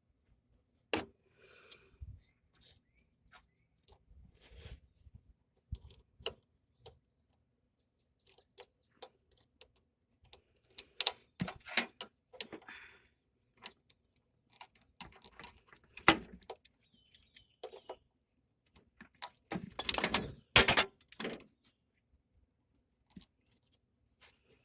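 Scattered metallic clicks and clinks from hand tools and engine parts being handled, with a louder jangling rattle about twenty seconds in.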